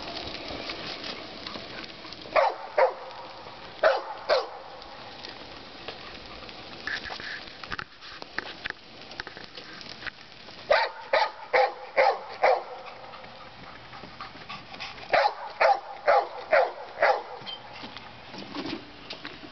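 A dog barking in short bouts with pauses between them: two barks about two and a half seconds in, two more around four seconds, then a quick run of about six barks near the middle and another run of about six a few seconds later.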